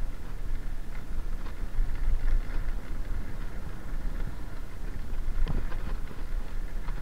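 Wind rumbling on the microphone over the crunch and rattle of a mountain bike's tyres rolling fast down a gravel track, with a few short knocks from bumps, the loudest about five and a half seconds in.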